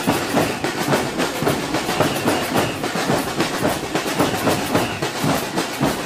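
Marching samba drum band playing on the move: snare drums and bass drums beating a fast, dense, steady rhythm.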